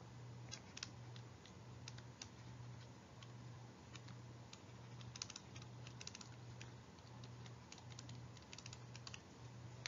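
Faint, irregular clicks and taps of a stylus writing on a tablet screen, over a low, evenly pulsing electrical hum.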